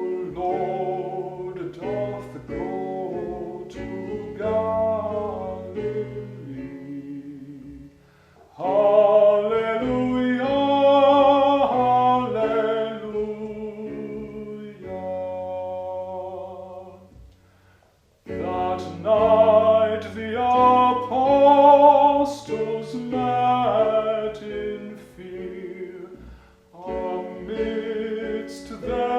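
Music: a song sung to acoustic guitar, in phrases broken by short pauses.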